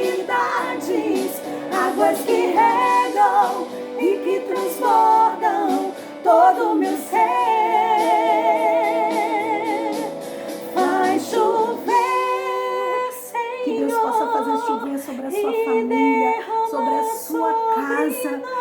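Female voices singing a Portuguese gospel worship song, with vibrato on long held notes.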